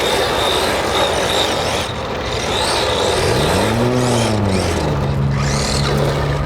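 Arrma Fury 2WD brushed-motor RC car driving and drifting on a dirt track: a steady rush of tyres on loose dirt with motor whine. About midway a pitched hum rises and falls, then holds steady.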